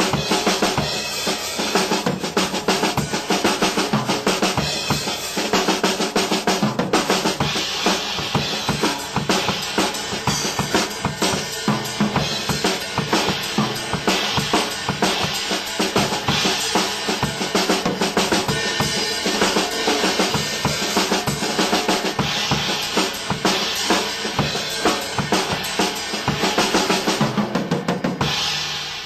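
Acoustic drum kit played solo in fast, dense runs of quadruplet and sextuplet groupings on snare and bass drum, with a constant bright wash over the strokes. The playing stops just before the end and the sound decays.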